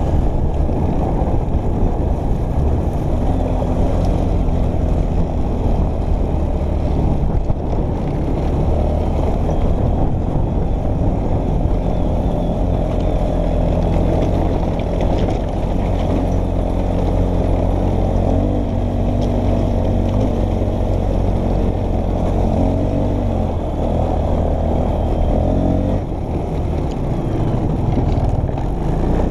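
Single-cylinder four-stroke ATV engine running as the quad is ridden over a rough trail. The engine pitch rises and falls with the throttle, with a brief easing off near the end.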